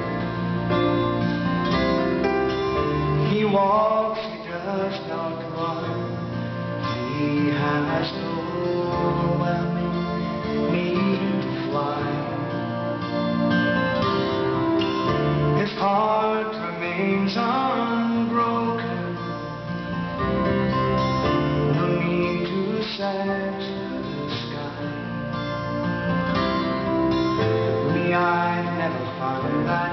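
Recorded song with guitar, the instrumental opening of a slow pop ballad.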